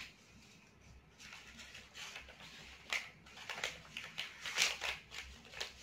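A sheet of paper being folded and creased by hand into a paper boat: faint rustling and crinkling, with a sharper crackle about three seconds in.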